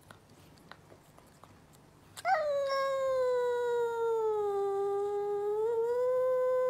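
Cat giving one long, drawn-out yowl, starting about two seconds in; the pitch sags slowly through the middle, lifts a little near the end and then holds steady.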